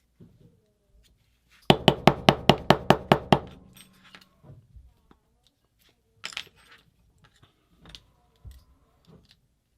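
A quick run of about eleven sharp metal-on-metal taps, roughly six a second, on the parts of a paintball marker's regulator being worked apart. This is followed by a few scattered clinks and knocks of small metal parts.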